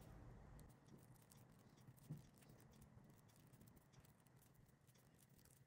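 Near silence, with faint rustles and light ticks of paper yarn drawn through a crochet hook while a chain is worked. One slightly louder tick comes about two seconds in.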